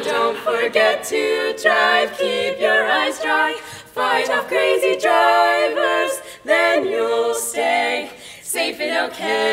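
Women's barbershop quartet singing a cappella in four-part harmony, in phrases with short breaths between them.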